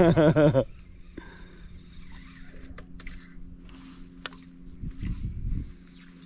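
Baitcaster reel being wound in after a cast, with a few sharp ticks, over a steady low hum.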